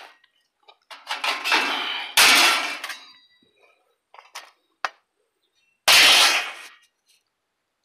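Thin plasma-cut steel sheet scraps clanking and clattering against one another as they are shifted and dropped on the pile, with loud clatters about two seconds in and again about six seconds in, and a few light clinks between.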